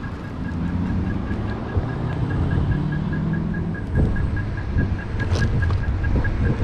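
Electric kick scooter riding over pavement: a low rumble of wheels and wind on the microphone, with a few knocks from bumps. A pedestrian crossing signal beeps fast and evenly.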